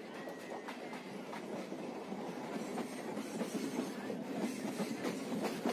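Passenger train running along the track, a steady noise of wheels on rail with irregular clicks over the rail joints, growing slightly louder.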